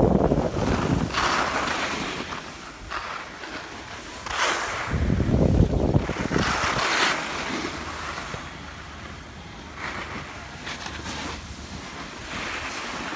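Snowboard edges scraping and hissing over packed snow in repeated swishes as the riders turn, with wind buffeting the phone's microphone in deep rumbles, loudest at the start and again about five seconds in.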